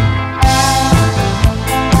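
Background music with a steady beat, about two drum hits a second.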